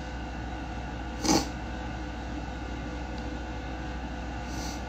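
Steady low hum and room noise with no speech. A single short, sharp noise about a second in, and a faint brief hiss near the end.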